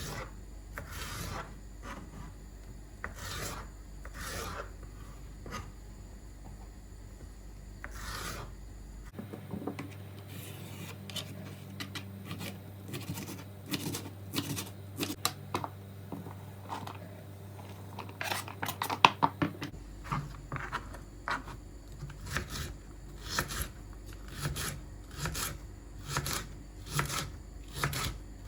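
Repeated short rubbing and scraping strokes, a few of them sharper and louder about two-thirds of the way in.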